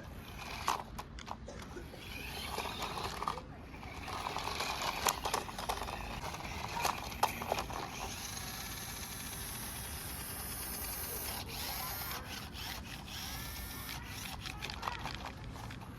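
Small electric motor of a remote-control monster truck whirring and changing pitch, with scattered clicks and scrapes.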